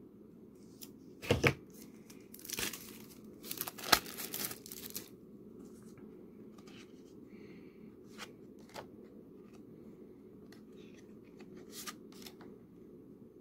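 Plastic shrink-wrap being torn and crinkled off a deck of game cards: a sharp tear about a second in, then bursts of crackling wrapper until about five seconds in. After that, only a few faint clicks of cards being handled over a low steady hum.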